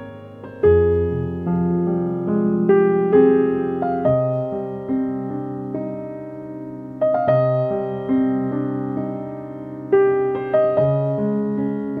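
Background piano music: a slow melody of single struck notes over held lower notes, each note dying away.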